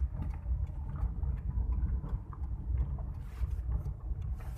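Car moving along a road, heard from inside the cabin: a steady low engine and road rumble. Near the end, fingers handle and rub the phone close to the microphone.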